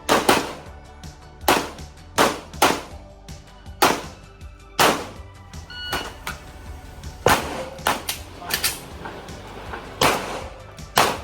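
Handgun shots fired singly at uneven intervals, about a dozen in all, over background music.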